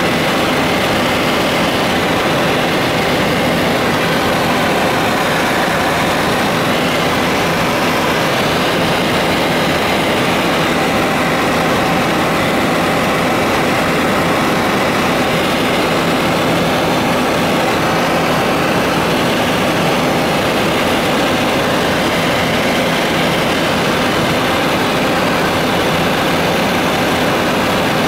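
Helicopter engine and rotor noise heard from inside the cabin in flight: a loud, steady drone with a faint even hum running through it.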